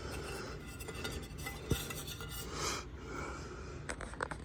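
Handling noise from a plastic smoke alarm being turned over in the hands: light rubbing and scraping, with a few soft clicks near the end.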